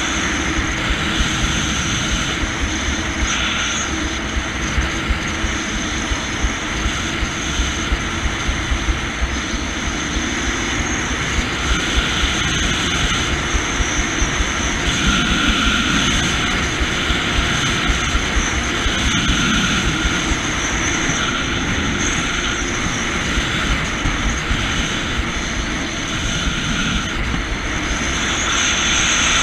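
Jet ski engine and jet pump running steadily while cruising, with water rushing past the hull. Low wind rumble on the microphone runs underneath.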